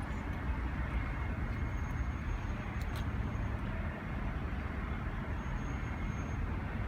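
Steady outdoor city background of distant traffic, a continuous low rumble and hiss, with a faint high thin tone heard twice and a single light click about three seconds in.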